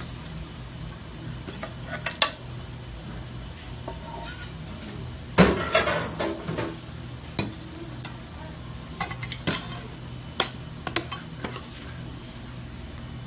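A metal pot clinking and knocking against stainless steel bowls as stew is tipped out of it: scattered sharp clinks, the loudest about five seconds in, over a steady low hum.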